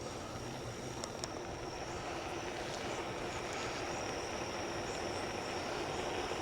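Steady rolling noise of an e-bike riding along a paved trail, tyre and wind noise, with a faint steady motor hum. A steady high insect drone runs over it.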